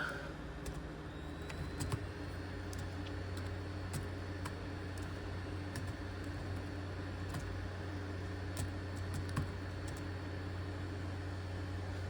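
Scattered keystrokes on a ThinkPad T23 laptop keyboard as a path is typed, over a steady machine hum. A faint high whine rises and then holds steady about two seconds in.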